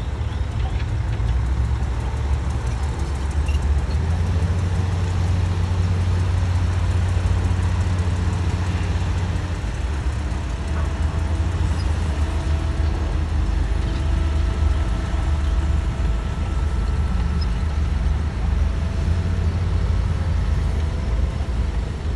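Heavy diesel earthmoving machinery running steadily with a deep low rumble; faint steady whines come in about halfway through.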